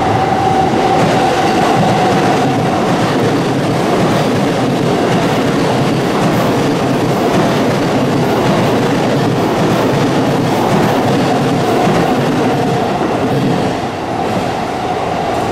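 Electric commuter train running past on nearby tracks: a steady rail rumble and wheel clatter with a faint motor whine, easing briefly near the end.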